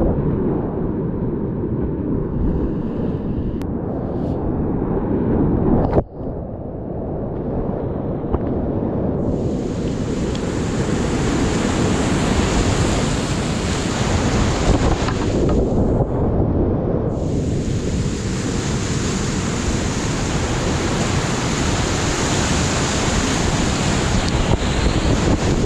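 Whitewater rapids at high flow, a continuous loud roar of rushing, crashing water close around a kayak and its camera microphone. There is a sudden brief dip about six seconds in, and through most of the second half a brighter hiss of spray and turbulence rides over the roar.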